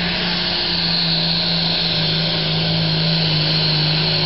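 Pulling tractor's engine running at full throttle under load as it drags the sled down the track: a loud, steady drone.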